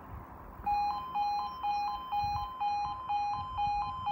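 Railway level crossing warning alarm starting up about half a second in: a two-tone electronic alarm switching between a lower and a higher pitch about twice a second. It warns road users that a train is approaching and the crossing is about to close.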